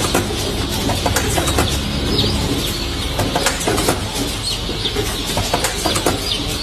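Day-old chicks peeping over and over while held in an automated hatchery vaccination machine. Under the peeps the machine hums steadily.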